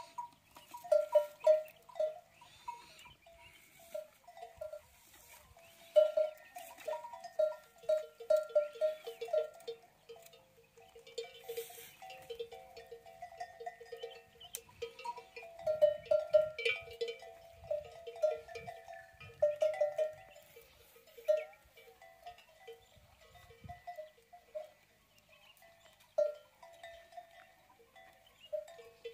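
Metal bells on browsing camels clinking irregularly, several bells at a few fixed pitches, in clusters as the animals move their heads and bodies while feeding.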